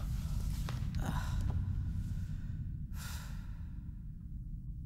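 A man sighs with relief, then breathes out twice more, about a second in and about three seconds in, over a steady low rumble.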